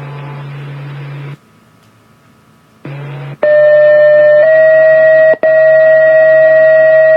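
Radio hiss with a low hum cuts out for about a second and a half, then returns. Then come two-tone sequential fire pager alert tones over the radio: a loud steady tone about a second long steps to a slightly higher tone held about three seconds. These are the tones that set off the volunteer firefighters' pagers ahead of a test page.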